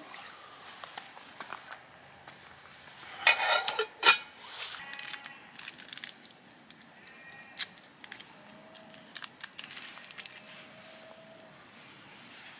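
Light clicks and clinks of camp cookware being handled, broken a little after three seconds in by a short, loud pitched call with overtones, then a fainter held tone later on.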